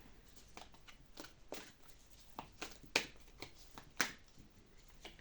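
Tarot cards being shuffled and handled: a run of short, irregular flicks and snaps, the two sharpest about three and four seconds in.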